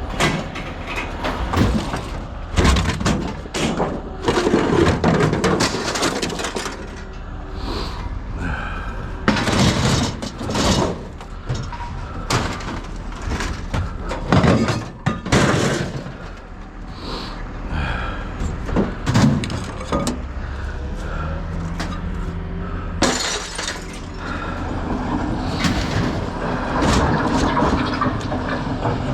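Scrap being unloaded or tossed onto a pile: a long run of irregular crashes and clattering impacts, some much louder than others.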